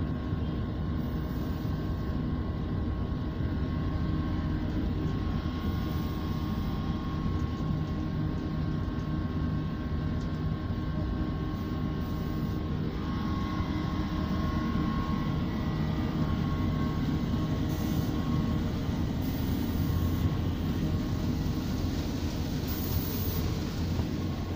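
Steady low mechanical drone with several steady tones running through it, from a working asphalt mixing plant.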